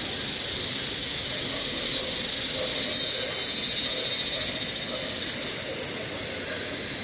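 Cicadas singing in a steady high-pitched chorus, swelling slightly in the middle.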